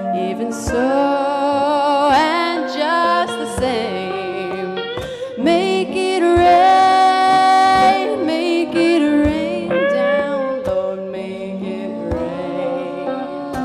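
Live song with a woman's lead vocal holding long, sliding notes over acoustic and electric guitar.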